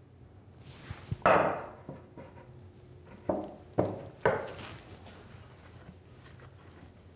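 Plywood knocking against plywood as a sawhorse top is set onto its glued end pieces and pressed into its notches: four sharp knocks, the loudest about a second in and three more between about three and four and a half seconds in.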